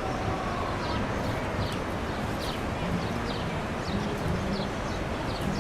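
Steady rushing roar of the falling water at Niagara Falls, with short high chirps repeating a few times a second over it.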